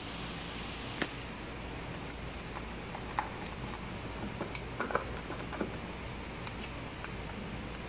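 Scattered light clicks and taps of a plastic lamp holder being handled and turned on its junction box: a sharp click about a second in, another about three seconds in, and a small cluster near the middle, over a steady low hum.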